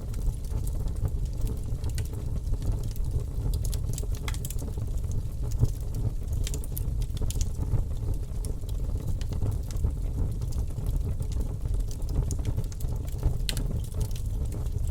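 Campfire burning: wood crackling in many irregular sharp snaps over a steady low rumble.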